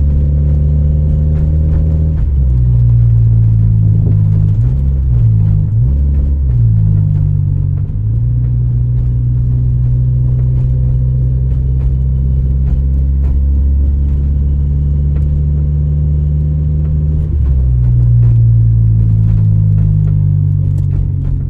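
Honda Civic EJ9 engine running while driving, heard from inside the cabin, with misfires on all four cylinders. Its low drone changes pitch several times as engine speed rises and falls, most of all in the first seven seconds and again near the end.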